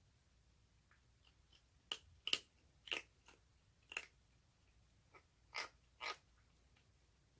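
Baby orange tabby kitten chewing food: a series of short, sharp crunching bites, about six loud ones over a few seconds with fainter clicks between.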